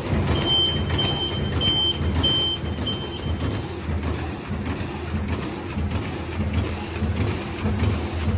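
PR-A1000 automatic roll bag-making machine running, a steady low mechanical rumble with a faint regular pulse. Early on, five short high beeps sound in a row, evenly spaced.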